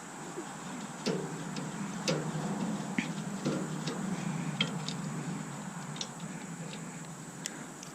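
Light metallic clicks and taps, irregularly spaced, from a screwdriver and small loose screws knocking against the metal parts of a coffee maker being taken apart.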